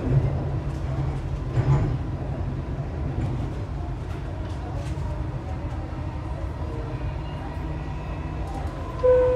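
Dubai Metro train running on elevated track, heard from inside the car: a steady low rumble with an occasional wheel clack. About nine seconds in, a two-note falling chime starts, the signal that comes before the next-station announcement.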